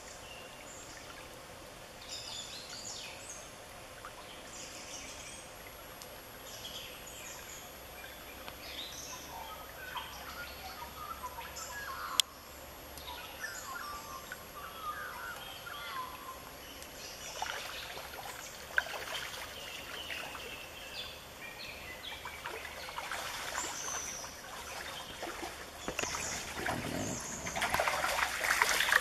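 Shallow gravel stream trickling, with small birds chirping on and off. A single sharp click comes about twelve seconds in, and a louder burst of rustling noise rises near the end.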